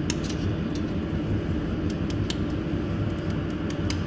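A jewelry laser welding machine running with a steady low mechanical hum, with scattered light clicks over it.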